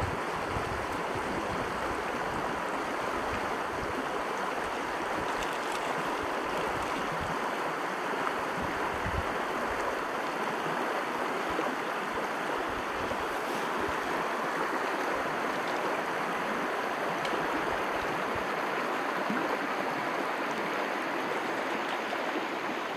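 A small, shallow mountain stream running steadily over a rocky riffle.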